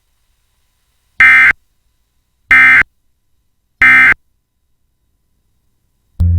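Emergency Alert System end-of-message code: three short, loud bursts of screechy digital data tones about 1.3 seconds apart, signalling that the alert has ended.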